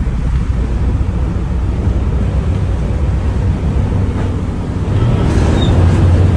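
A passenger ferry's engines drone steadily at cruising speed, with the churning wake and wind on the microphone over it. The wind grows a little stronger about five seconds in.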